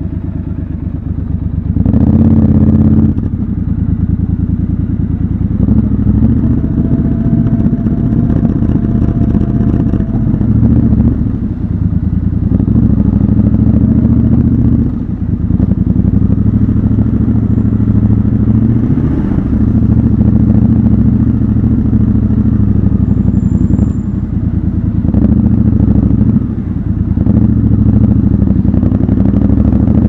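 Triumph Scrambler 1200 XC's 1200 cc parallel-twin engine running at low speed, with a louder burst of throttle about two seconds in and several brief throttle-offs later, inside an underground car park.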